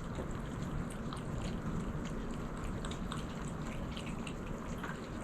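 Cats eating: many small, wet smacking and chewing clicks, over a steady low background hum.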